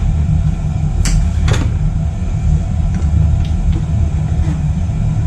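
Steady low rumble with a few sharp clicks about a second and a second and a half in, then fainter ticks: small metal screws and hand tools handled while motorcycle bodywork is unscrewed.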